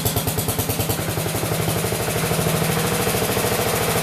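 1969 Sears Suburban garden tractor's small engine running on its first cold start of the season. It fires in slightly uneven pulses, then settles into a faster, steadier run about two seconds in.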